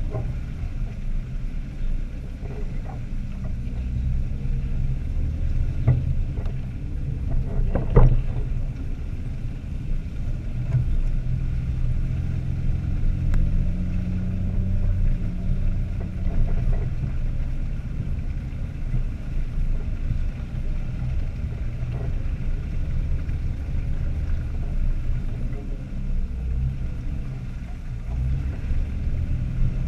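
Jeep engines running low and steady as the vehicles crawl along a muddy trail, with one sharp knock about eight seconds in.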